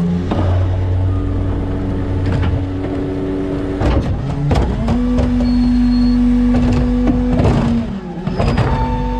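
New Way Mamba automated side-loader refuse truck cycling its arm. The engine steps up to a higher, steady speed about five seconds in to drive the hydraulics as the arm lifts a cart. Sharp clanks and knocks come from the cart and arm against the hopper, the last ones near the end as the cart is tipped and the load drops in.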